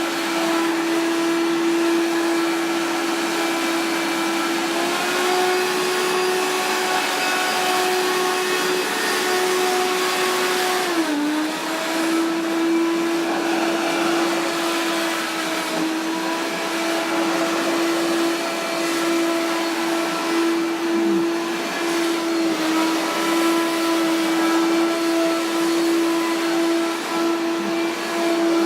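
Hoover Power Max vacuum cleaner running at normal speed with a steady motor whine. The pitch steps up slightly about five seconds in and dips briefly near eleven seconds before settling back.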